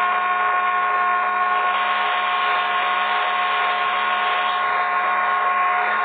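Ceiling fan running steadily: an even whir with a constant pitched motor hum.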